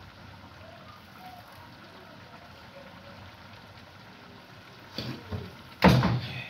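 A pot of chicken and beef stew boiling, a steady faint bubbling. Near the end a short loud voice cuts in.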